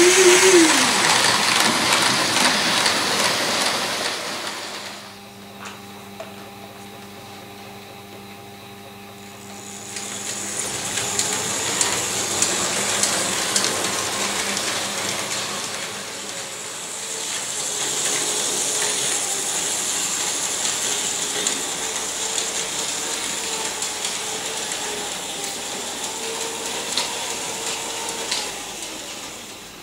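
Märklin model railway in operation: the small electric motors of the Märklin crane and of model trains running on the track, a mechanical whirring and rattling. It drops to a quieter hum about five seconds in and picks up again about ten seconds in.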